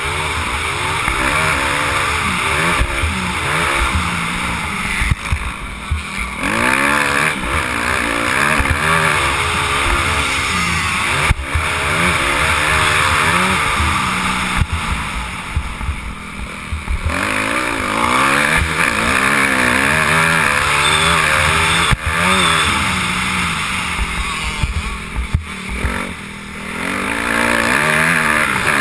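Motocross dirt bike engine revving up and down as it is ridden hard around a dirt track, the pitch climbing through the gears and falling again, with the throttle shut off briefly a few times for corners and jumps.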